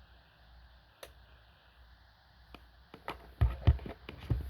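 Power strip switch being flipped: a few light clicks, then a cluster of louder clicks and low knocks near the end.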